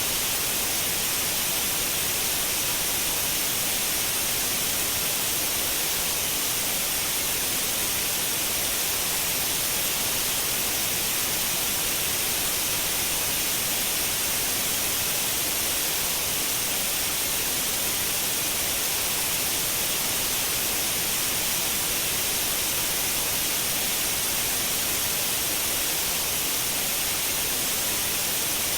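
Continuous generated white noise: a steady, unchanging hiss, strongest in the treble.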